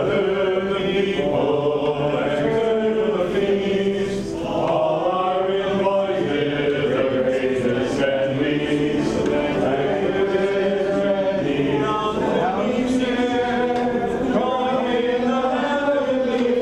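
A choir singing a processional chant, many voices together with long held notes.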